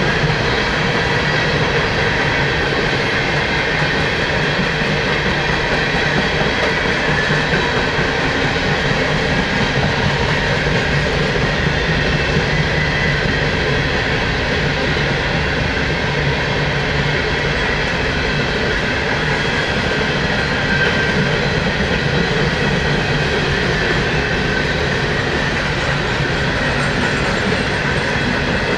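Empty coal hopper cars of a long freight train rolling past, a steady rumble and clatter of steel wheels on rail.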